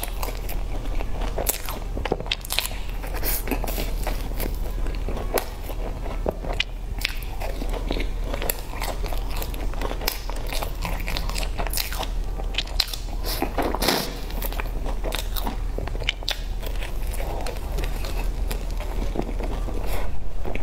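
Close-miked biting and chewing of crumb-topped cream puffs: crackly crunches of the crust with many small clicks, over a low steady hum.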